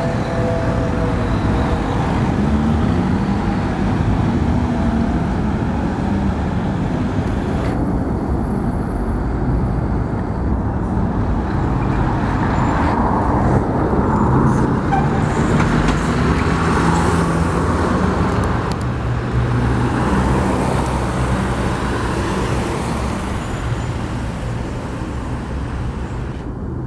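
Scania R500 tanker truck's V8 diesel engine running as it drives through city traffic, mixed with the engines and tyre noise of passing cars. The steady low rumble is a little louder about halfway through, as the truck passes close.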